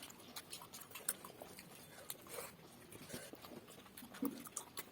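Close eating sounds of people eating rice and fish curry: soft, irregular clicks and smacks, a little louder about a second in and again about four seconds in.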